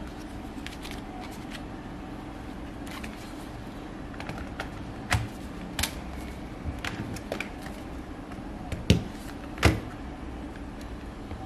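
Clicks and knocks of a Dell Latitude E7240 laptop being handled: hands working on the underside where the new battery goes, then the laptop turned over and set down on a wooden desk, with two louder knocks a little before the end. A steady low hum runs underneath.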